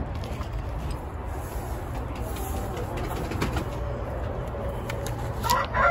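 Soft, low cooing and clucking of chickens in a coop over a steady low rumble; near the end a rooster starts a louder call.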